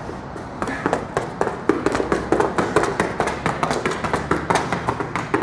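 Rapid footsteps of sneakers on rubber gym flooring during an in-and-out agility ladder drill: a quick run of light taps starting about half a second in.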